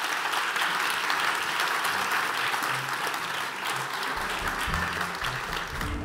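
Audience applauding in a hall, a dense steady clapping. About four seconds in, low-pitched music begins to come in under the clapping.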